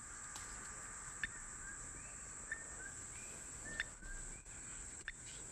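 Steady high insect drone with short bird chirps. Over it, a faint click with a short tone about every 1.3 s: a radio-tracking receiver picking up the pulses of a brown lemur's collar transmitter.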